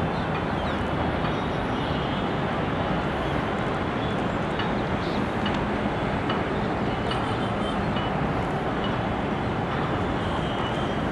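Steady outdoor background rumble, even in level and heaviest in the low end, with no distinct calls or events standing out.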